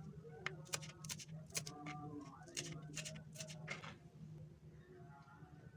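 Irregular light clicks and taps of kitchen utensils over a low steady hum, the tapping stopping about four seconds in.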